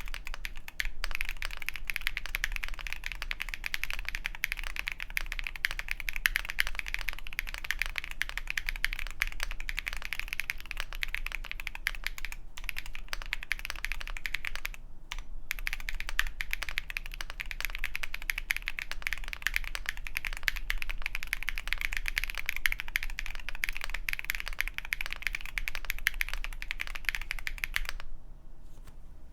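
Fast, continuous typing on an Akko MOD-series custom mechanical keyboard fitted with KNC Keys Green Jacket linear switches and doubleshot PBT keycaps, the keystrokes running together into a steady clatter. It breaks off briefly twice near the middle and stops just before the end.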